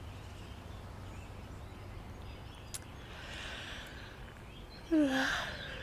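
Outdoor park ambience bed: a steady low rumble with faint bird sounds. About five seconds in, a brief falling-pitch hum or sigh from a woman's voice.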